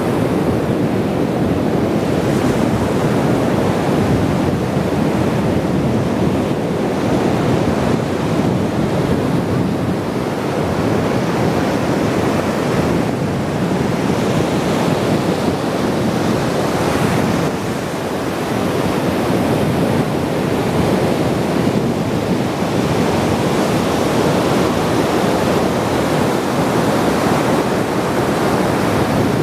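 Ocean surf washing continuously onto the shore, swelling and easing every few seconds.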